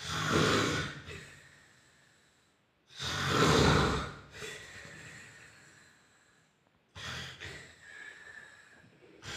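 A man snoring in his sleep: three loud snores about three seconds apart, each about a second long and trailing off.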